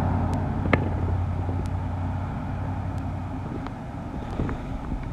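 A low, steady motor hum that fades away over the first two seconds, over outdoor background noise, with a few light clicks, the sharpest about three-quarters of a second in.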